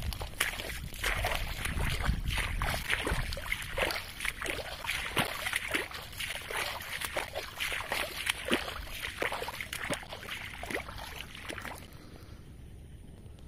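Water splashing and sloshing in quick, irregular strokes, stopping about twelve seconds in.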